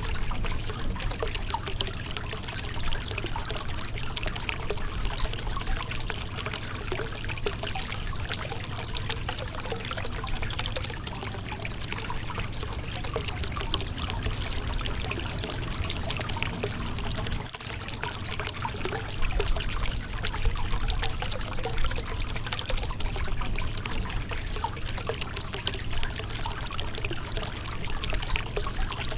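River water flowing and splashing over a rocky streambed: a steady rushing burble with fine trickling and splashing over a low rumble.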